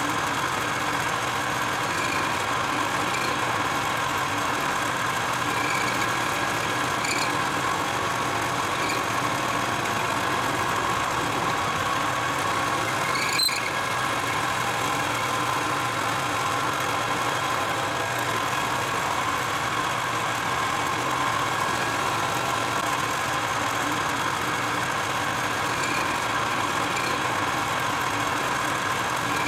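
Metal lathe running steadily, its motor and gearing giving a constant whine, while the tool turns down the end of a steel 3/8-inch socket extension. One short, sharp click near the middle.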